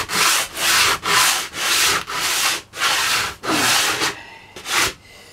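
Coarse 60-grit sandpaper rubbed by hand back and forth across pallet-wood boards, in even strokes about three a second. The strokes stop about four seconds in, with one more stroke just before the end.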